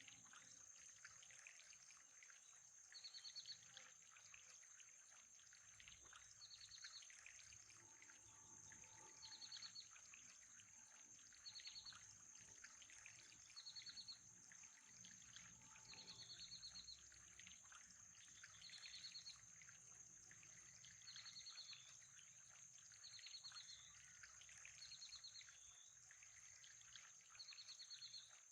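Faint nature-sounds backing track: a short chirping trill repeats about every two seconds over a steady high-pitched whine and a soft trickle of water.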